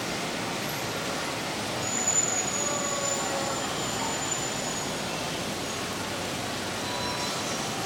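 G scale model train rolling along the track, a steady even rolling hiss, with a faint high whine from about two seconds in that lasts a few seconds.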